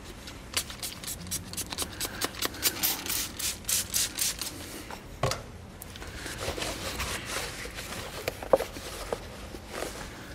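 An eraser scrubbed back and forth against the inside of a plastic airbox to clean it: a quick run of rubbing strokes, about three or four a second, for the first few seconds, then a knock and slower, softer rubbing with a sharp click near the end.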